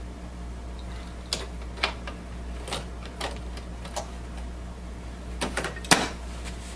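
Plastic clicks and taps as an ink cartridge is pushed into its slot in a Brother MFC-J5920DW inkjet printer's ink bay. The ink cartridge cover snaps shut about six seconds in, the loudest click. A steady low hum runs underneath.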